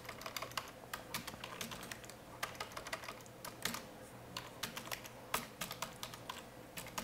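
Typing on a computer keyboard: an irregular run of quick, light keystroke clicks, with a faint steady hum underneath.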